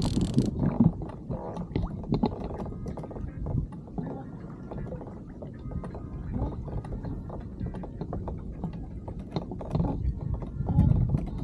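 A fishing reel being cranked in short clicking bursts while water sloshes against a kayak hull during a long fight with a hooked tuna. The audio is sped up, which makes the sloshing sound gurgling.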